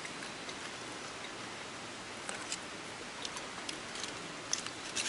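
Plastic spoon clicking and scraping against a TOAKS titanium fry pan as food is scooped up, a scatter of light clicks in the second half, over a steady hiss of light rain.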